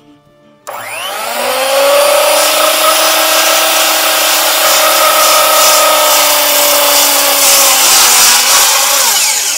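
A sawmill's saw starts up about a second in with a rising whine, runs steadily through a cut across three clamped timber beams at once, and winds down near the end.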